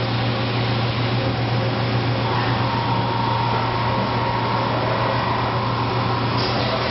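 Mazak Mazatech V10 vertical machining center standing powered up, its pumps and fans giving a steady low hum under an even rushing noise, with a faint whine joining about two seconds in.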